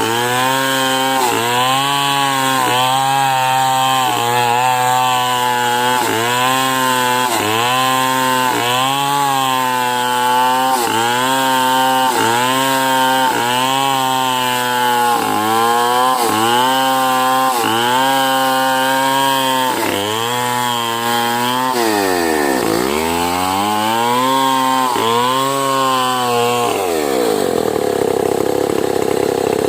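Chainsaw ripping lengthwise through a medang log at full throttle, its engine note dipping and recovering about once a second as the chain bogs into the cut. About three-quarters of the way through the revs sag deeply and climb back, and near the end the engine drops back from full revs.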